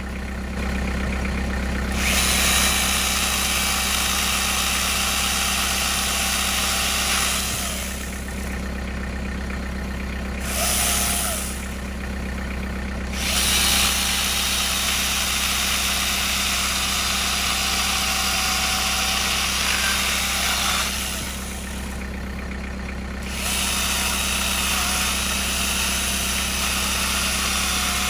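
Angle grinder fitted with a chainsaw bar attachment, cutting through tree limbs in long runs that stop briefly three times along the way. A steady low engine idle runs underneath throughout.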